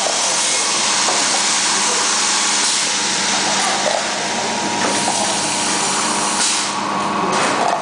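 Automatic cup filling and sealing machine running: a steady mechanical noise with a constant hum, as the chain conveyor indexes the cup plates and the filling nozzle dispenses liquid into the cups. A louder hiss rises for about a second near the end.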